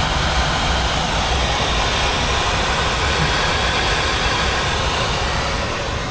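Ford 351M V8 running with a steady exhaust rush, heard right at the tailpipe as it blows white smoke and black water, which the mechanics take for a bad head gasket letting oil and water mix.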